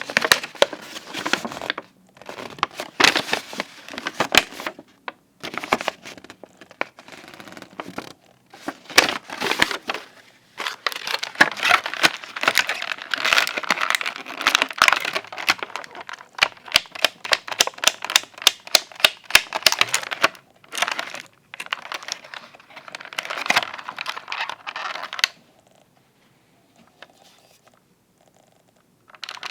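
Toy packaging being opened and handled: plastic and cardboard crinkling and tearing in stretches, with many sharp clicks and ticks, going quiet for the last few seconds apart from a short burst at the end.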